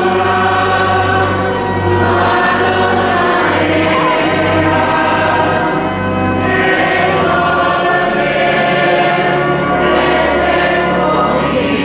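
Choir singing a slow hymn, held notes changing every second or two over a sustained low bass accompaniment.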